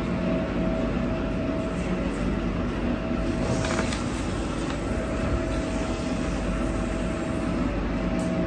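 CNC high-speed wire straightening machine running steadily, feeding steel wire for mattress springs, with a thin steady whine that drops out for about a second around four seconds in.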